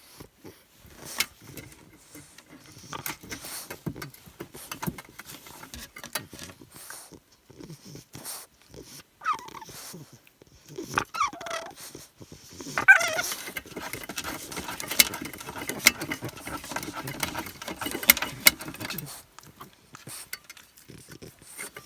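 English bulldog puppy making short whiny calls that fall in pitch, a few times in the second half, among scuffling and clicking noises. A denser stretch of scuffling comes about two thirds of the way through.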